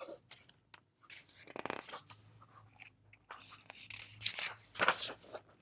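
Paper pages of a picture book being turned and handled: irregular rustling and crinkling in a few bursts, the loudest a little after halfway and near the end.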